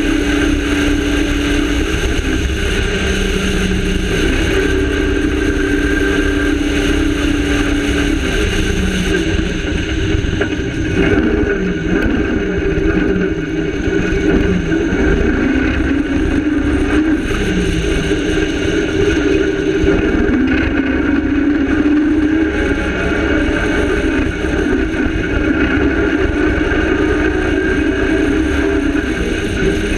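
Cross-country rally car engine running hard at speed, heard onboard. Its note holds steady in stretches, then rises and falls with the throttle, over a constant low rumble from the car driving over rough dirt ground.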